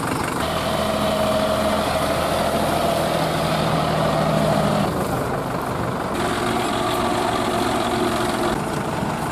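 Diesel tractor engines running steadily: a John Deere 5050E and a Sonalika DI 60 RX stuck in canal mud. The engine note changes about five seconds in.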